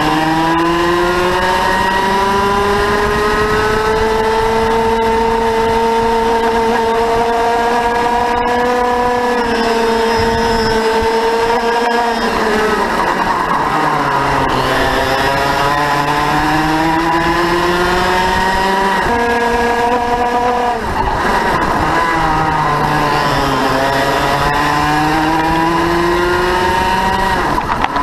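Onboard sound of a KA4 junior kart's two-stroke engine at racing revs. The pitch climbs steadily for about nine seconds, then falls away. It rises and falls twice more through the following stretches of track, and drops again near the end.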